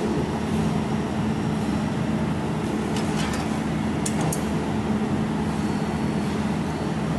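Jewelry laser welding machine running with a steady hum, with a few sharp ticks about three and four seconds in.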